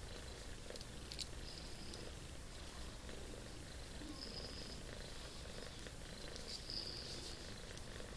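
Domestic cat purring steadily close to the microphone, a continuous low rumble, with a few light clicks from the metal knitting needles being worked.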